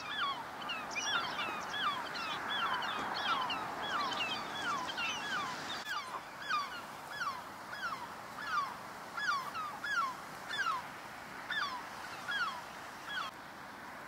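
Eurasian oystercatchers calling: a run of high, downward-slurred piping notes from several birds at once. They thin out to single calls about twice a second and stop near the end.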